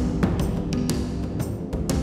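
Background music with a steady beat, about two percussive hits a second, over held notes.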